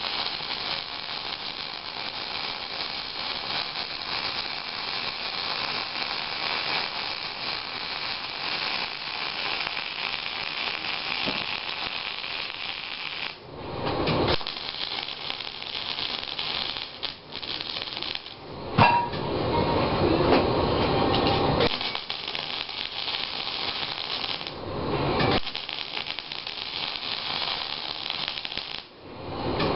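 MIG welding arc on a steel dozer blade, fed by a Miller 251 wire welder: a steady crackling hiss as the wire burns in. It breaks off a few times for a moment and starts again between beads.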